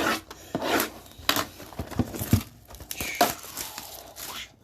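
Packaging being handled: irregular crinkling rustles and short tearing rips.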